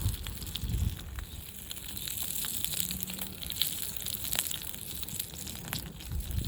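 Campfire crackling, with scattered irregular sharp pops.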